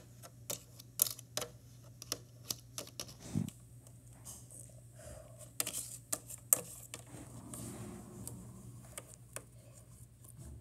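Small plastic toy figures and accessories being set down and handled on a plastic toy playset: irregular light clicks and taps.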